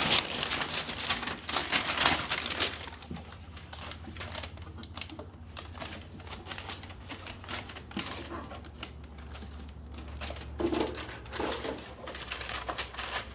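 Packaging being rummaged through by hand: rustling and crinkling with many small clicks and knocks, busiest for the first few seconds, then quieter scattered clicks.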